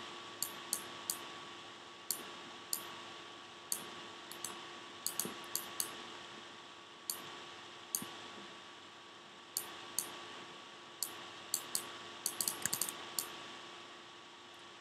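Computer mouse and keyboard clicks: single sharp clicks every second or so, with a quick run of several about twelve seconds in. A faint steady hum lies beneath them.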